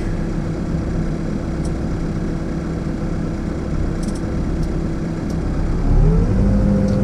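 New Holland B95 backhoe loader's diesel engine running steadily, growing louder about six seconds in with a wavering whine as the machine works.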